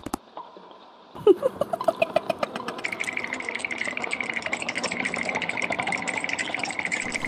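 A small engine starts up about a second in and keeps running with a rapid, even beat.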